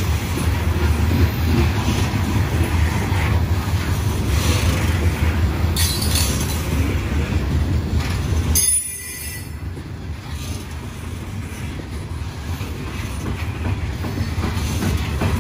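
Norfolk Southern coal gondola cars rolling past, a steady low rumble of steel wheels on rail. Brief high-pitched wheel squeals come about six seconds in and again a little past halfway, where the sound suddenly drops and then slowly builds back up.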